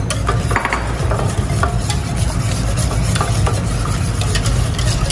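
Wire whisk beating egg yolks into a thick milk-and-flour soufflé base in a stainless steel saucepan, the wires scraping and clicking repeatedly against the pan, over a steady low hum.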